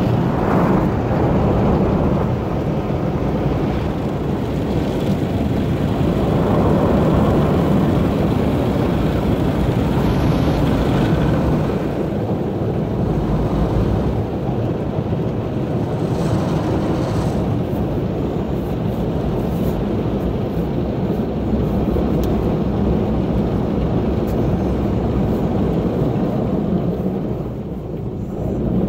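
Automatic brush car wash heard from inside the car: water spray and rotating brushes working over the body and windshield, a steady, loud, low rumble.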